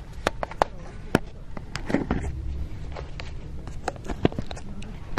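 Footsteps crunching over dry leaves and twigs: irregular sharp snaps and crackles, over a faint low rumble of handling.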